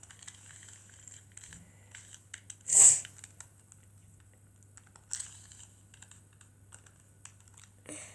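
Plastic 2x2 Rubik's cube being twisted by hand: scattered small clicks of the layers turning, with one sharper, louder turn about three seconds in and another a little after five seconds. A faint steady low hum underneath.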